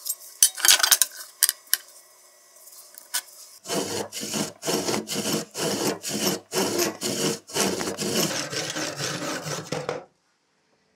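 Hand saw cutting through an oak beam in a miter box, in steady back-and-forth strokes about two to three a second, stopping suddenly near the end. A few light clicks and scrapes come before the sawing starts.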